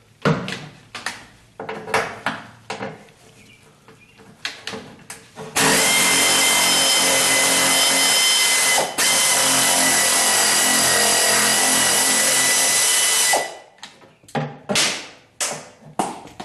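Pneumatic air ratchet running on a half-inch bolt for about eight seconds, a loud steady hiss with a high whine, with a brief break near the middle. Before it starts there are scattered clicks and knocks of the socket being fitted on the bolt.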